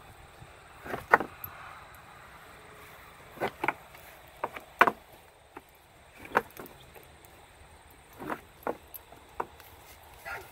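Alpine goat's horns scraping and knocking against a tree branch as he rubs them: short, sharp scrapes at irregular intervals, some in quick pairs.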